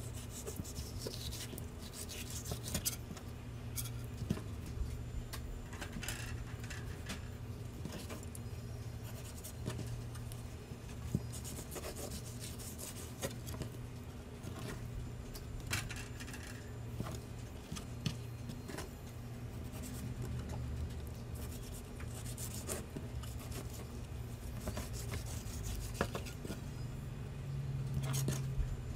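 Fillet knife scraping and rubbing along a plastic cutting board as fish fillets are skinned, with scattered short clicks and taps, over a low steady hum.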